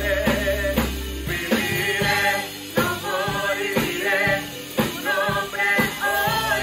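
Live gospel worship music: a lead male singer and backing vocalists singing into microphones over a drum kit and keyboard, with a steady drum beat.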